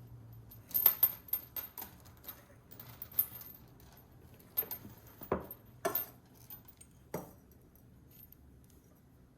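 Small hard parts of a water-filter faucet fitting being handled and fitted together by hand: a quick run of light clicks and clinks about a second in, then several separate knocks and taps, with a duller knock around the middle.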